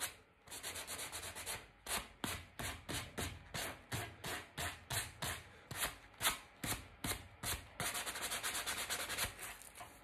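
Black abrasive pad rubbed back and forth by hand over a hardwood handrail corner, taking excess wax filler off the repair. Quick scratchy strokes, about three to four a second, louder from about two seconds in.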